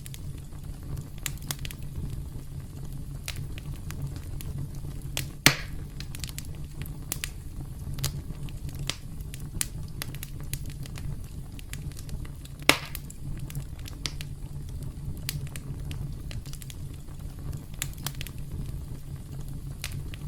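Campfire crackling steadily over a low rumble, with scattered small snaps and two much louder pops, one about five seconds in and one about twelve seconds in.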